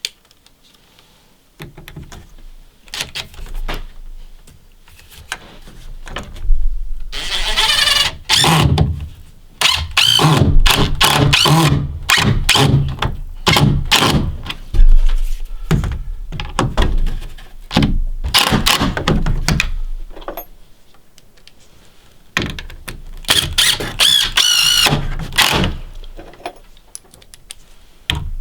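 A power drill driving long 3-inch screws through the door framing into the jack stud, its motor whirring in repeated start-stop bursts, some with a high wavering whine, between thunks.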